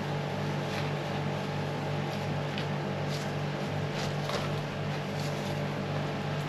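A steady low machine hum, with faint brief rustles of plants being handled in a pot.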